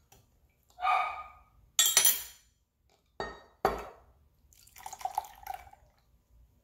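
A spoon clinking and scraping against a metal mesh strainer set on a glass measuring cup while cooked blueberries are pressed, with a few sharp knocks. Near the end, blueberry syrup is poured from a saucepan through the strainer into the cup.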